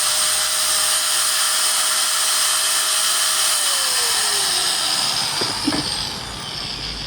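Powerbilt PBT-AG4-1100 angle grinder running at a steady speed with a high whine, then switched off about three and a half seconds in, its pitch falling as the disc spins down. A couple of faint knocks near the end.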